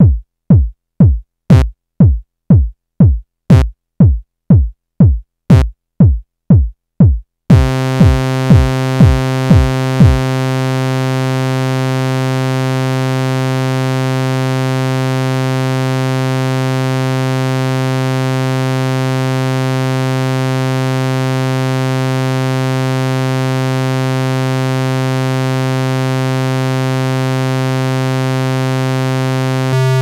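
Korg iMS-20 synthesizer app on an iPad: a string of short drum-like blips, each dropping quickly in pitch, about two a second. A steady low synth tone comes in about a third of the way through and holds, while the blips stop soon after.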